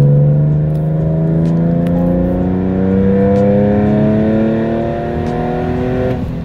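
Porsche 996 911's rebuilt, bored-out M96 flat-six accelerating hard in one gear, heard from inside the cabin: the engine note rises steadily with the revs from about 3,000 to 5,000 rpm, then eases off near the end. It is a break-in run to seat the new piston rings.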